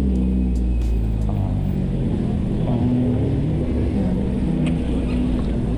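Steady low rumble of a city street, with vehicle engines passing close by.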